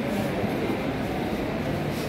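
Steady hall ambience: a constant low rumble with indistinct voices of people talking in the background.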